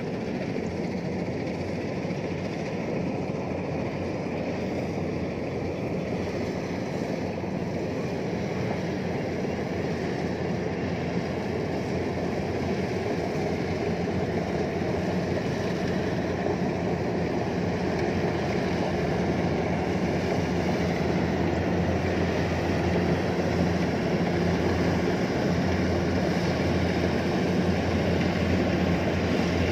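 Kubota DC-105X combine harvester's diesel engine and threshing gear running steadily while it cuts rice, a continuous mechanical drone that grows slowly louder as the machine comes closer.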